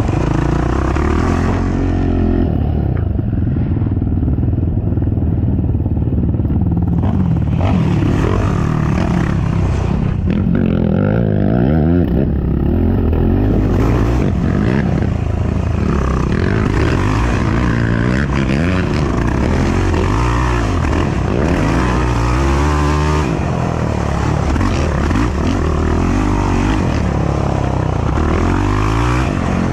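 Racing ATV engine under constant throttle changes, its pitch rising and falling again and again as the quad accelerates and slows through the turns of a rough dirt trail.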